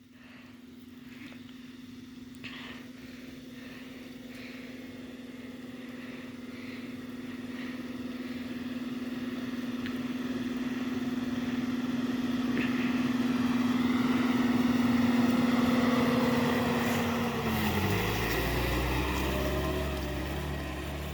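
A motor vehicle's engine approaching with a steady note that grows gradually louder, then the note drops in pitch near the end as the vehicle slows, leaving a low rumble.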